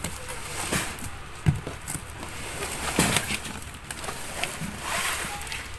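Cardboard delivery box being handled and opened: scattered knocks, one sharper about a second and a half in, and several short scraping rustles of cardboard.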